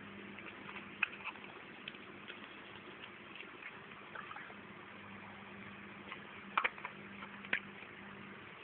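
Light clicks and taps of small plastic feeder cups and their lids being handled, a pair near the start and two louder ones later on, over a low steady hum.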